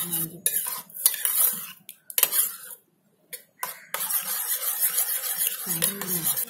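A metal spoon beating raw egg mixture with chopped vegetables in an enamel bowl: scraping and clinking against the bowl in quick irregular strokes, a brief pause about three seconds in, then continuous rapid stirring.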